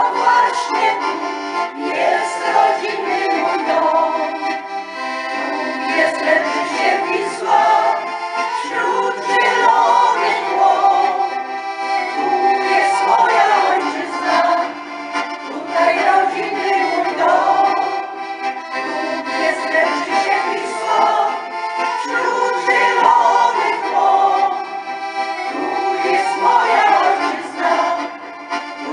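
Piano accordion playing a folk tune as accompaniment for a folk singing group.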